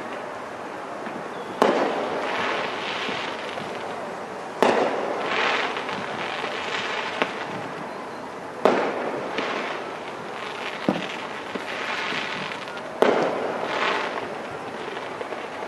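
Aerial fireworks bursting: four sharp bangs about four seconds apart, each followed by a second or two of crackling, with a couple of smaller pops in between.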